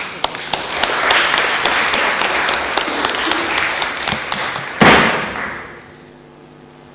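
Audience applauding in a lecture hall, a dense patter of many hands that starts at once and dies away about six seconds in. A sharp, loud thud about five seconds in is the loudest moment.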